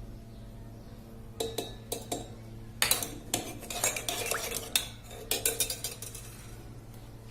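A teaspoon clinking and scraping against a pot in a run of quick, irregular taps from about a second and a half in, as ground ginger is spooned into lemon juice and stirred.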